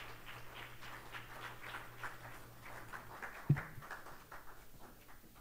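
Audience applauding, dying away near the end, with one sharp thump about three and a half seconds in.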